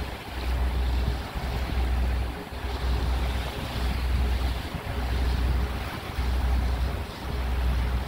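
Wind buffeting the microphone in repeated gusts aboard a ferry under way, over a steady rush of water and boat noise.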